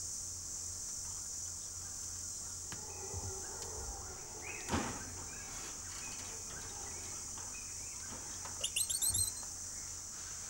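Steady high-pitched insect drone, with a quick run of bird chirps about nine seconds in and a single knock about halfway through.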